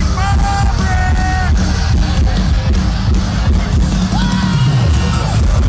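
A metalcore band playing live through an arena PA, heard loud from within the crowd: pounding drums and distorted guitars with heavy bass, and vocal lines over them near the start and again about four seconds in.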